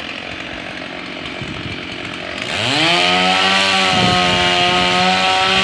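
Two-stroke chainsaw revved up to full throttle about halfway through, its engine note climbing quickly and then holding at a high steady whine with brief dips.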